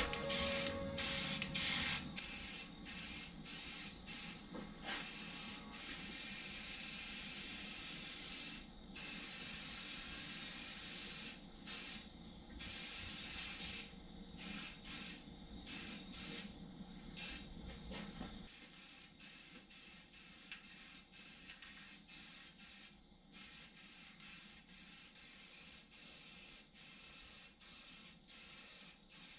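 Aerosol spray-paint can spraying in repeated short bursts of hiss, each a second or two long, with brief pauses between them as the nozzle is pressed and released.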